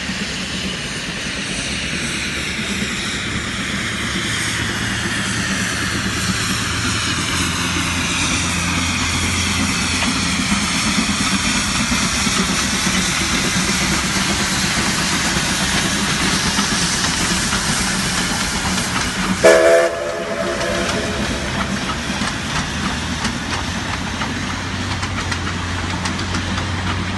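A steam-hauled passenger train passing close by: a steady rumble of the locomotive and carriages on the rails, growing a little louder as it comes past. About three-quarters of the way through there is one short toot.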